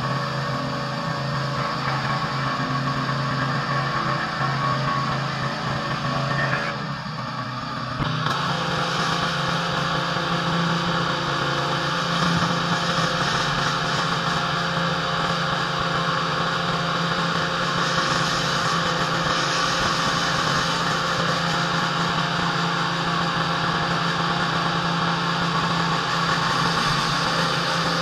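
Pressure washer engine running steadily under the hiss of the high-pressure water spray on concrete. The sound drops briefly about seven seconds in, then comes back with stronger spray hiss.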